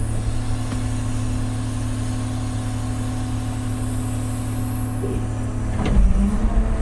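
Large excavator's diesel engine running at a steady pitch; about six seconds in there is a sudden clunk and the engine note drops to a lower, heavier rumble.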